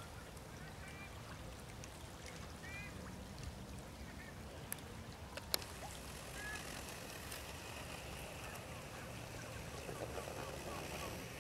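Birds calling in the background: a few short, high, rising-and-falling chirps scattered through, and a quick run of lower calls near the end, over a steady low rumble. Two sharp clicks about five seconds in.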